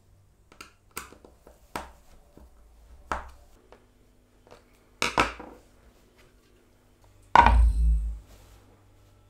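Workshop handling sounds: hard objects, such as wooden pieces or tools, are knocked and set down, several light knocks followed by two sharper clacks about five seconds in. A louder, heavier thud comes about seven and a half seconds in.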